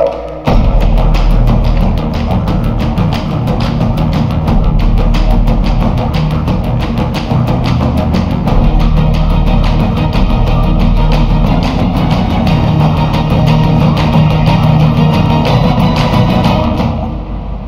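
Loud soundtrack music with a steady drum beat, kicking in about half a second in and dying down near the end.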